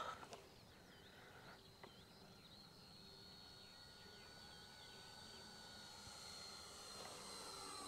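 Near silence, with the faint steady high whine of a distant electric RC model plane, a 3D-printed F7F Tigercat, its motor and propeller rising slightly in pitch and easing off again.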